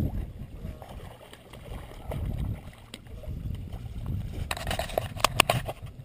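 Water sloshing in shallow creek water as a released brown trout swims off, under an uneven low rumble. A quick run of sharp clicks and knocks comes near the end.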